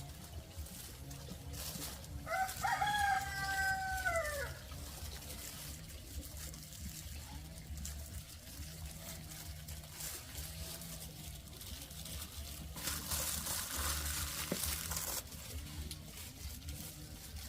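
A rooster crowing once, a call of about two seconds that drops in pitch at its end. Near the end a rushing, hissing noise lasts about two seconds.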